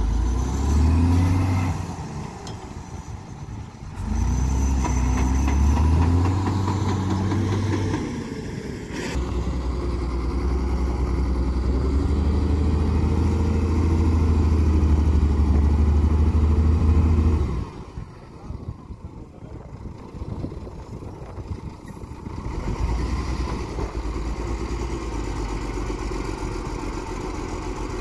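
Heavy diesel dump truck engine revving hard in several long pulls, its pitch rising and falling. About two-thirds through it drops suddenly to a lower, steadier running.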